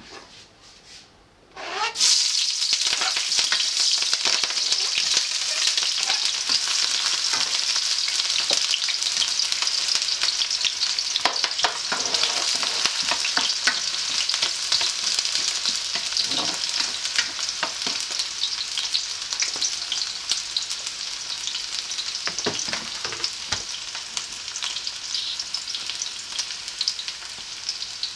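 Chopped onion and spring onion frying in hot oil in a wok. The loud sizzling starts suddenly about two seconds in and carries on steadily, with the clicks and scrapes of a spoon stirring against the pan.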